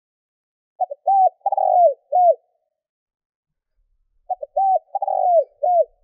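Spotted dove singing: two identical phrases about three and a half seconds apart, each two quick short notes followed by three coos, the middle one longer and rolling.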